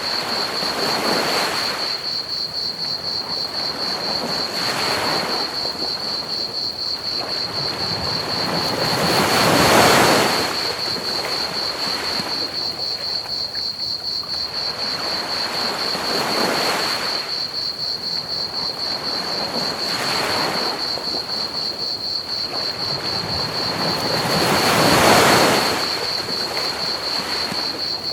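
Ocean waves washing onto a beach in slow swells every few seconds, the biggest about ten seconds in and again near the end. Under them runs a steady, rapid chirping of crickets, with an even hiss of pink noise.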